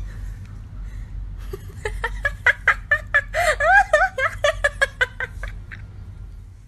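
A person giggling: a quick run of short laughs starting about a second and a half in and fading out after about five seconds.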